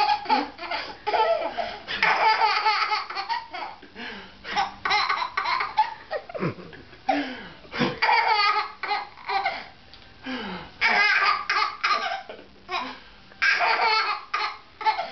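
A baby laughing hard in repeated bursts of giggles and belly laughs, with short pauses between the bursts.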